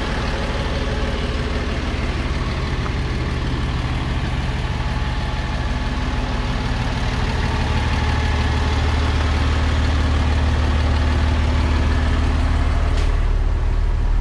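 Diesel engine of a 2006 Freightliner M2 Business Class service truck idling steadily, warm, growing a little louder toward the end.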